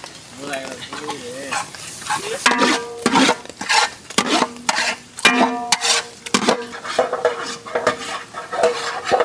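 A spoon stirring and scraping against a pan over sizzling, as onion, coconut, curry leaves and spices fry in oil for a chickpea curry. The scrapes and knocks come irregularly, several a second.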